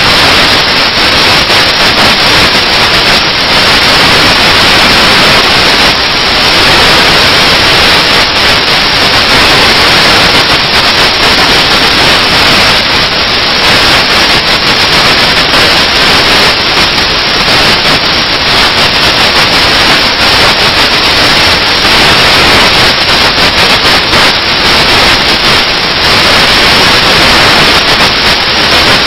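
Loud, steady static hiss that covers the whole soundtrack, with no other sound standing out.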